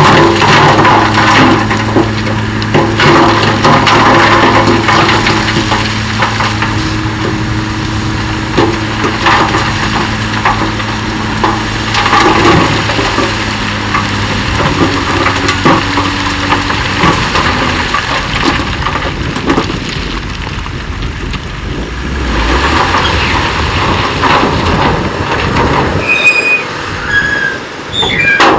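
Bulldozer engine running steadily while rock crunches and grinds under the blade and tracks. The engine hum drops away about two-thirds of the way through, leaving the rock noise.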